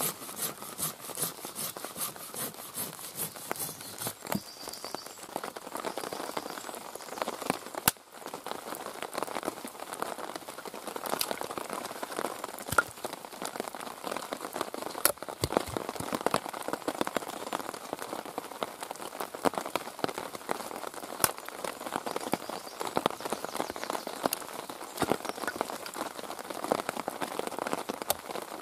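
A Silky Zubat pruning saw cutting through a log in quick, even strokes. About eight seconds in it gives way to the sharp, irregular chops of a Wetterlings bushcraft axe splitting wood on a chopping block. Steady rain falls throughout.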